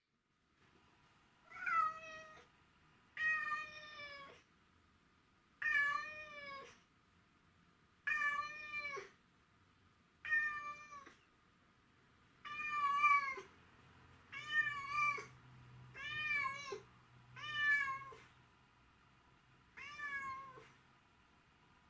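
Domestic cat meowing over and over, about ten drawn-out calls roughly two seconds apart, each bending in pitch. These are the cries of a cat missing its absent owner.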